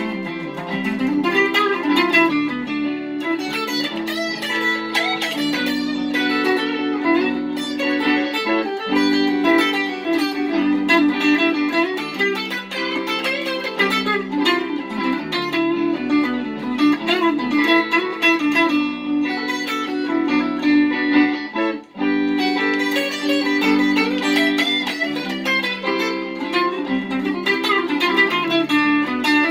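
Squier Mini electric guitar with a capo, played continuously: a stream of picked notes and chords, with a brief break about 22 seconds in.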